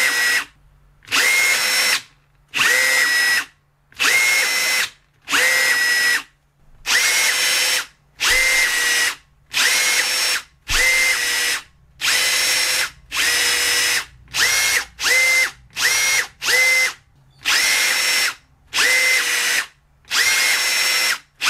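Two Makita 18V cordless rivet tools, the DRV150 and DRV250, pulling rivets in a speed test: a run of short motor whirs, about one a second, each starting with a brief rise in pitch. They come closer together about two-thirds of the way through.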